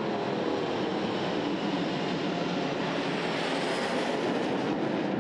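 Boeing 787 Dreamliner's twin Rolls-Royce Trent 1000 turbofans at takeoff thrust as the aircraft climbs away, a steady jet noise that cuts off suddenly at the end.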